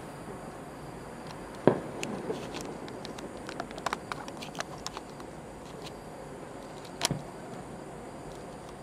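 Distant aerial firework shells bursting: two sharp booms about five seconds apart, each echoing briefly, with a scatter of faint crackling pops after the first.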